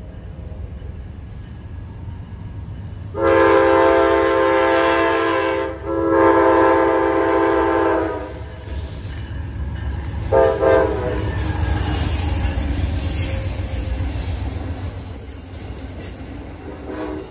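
Amtrak GE P42DC diesel locomotive sounding its chord horn for the grade crossing: two long blasts, then a short one, over the steady rumble of its diesel engine. The locomotive's passenger cars then roll past on the rails.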